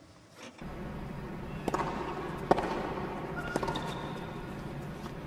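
Tennis ball being struck by rackets and bouncing on a hard court during a rally: sharp pops roughly a second apart, the loudest about two and a half seconds in, over steady arena background noise that starts after a near-silent first half second.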